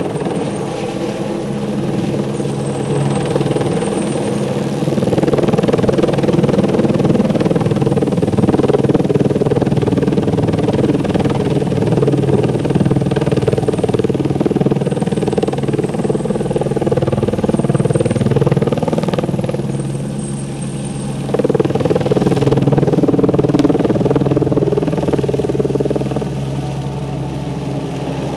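Light helicopter hovering overhead with a bucket on a long line, its rotor and engine running steadily. The sound dips briefly and then grows suddenly louder about three-quarters of the way through.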